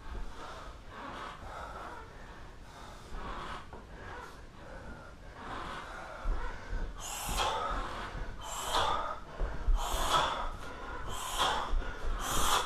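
A man breathing hard, out of breath from exertion: sharp, heavy breaths that come about every second and a half and grow louder from about halfway.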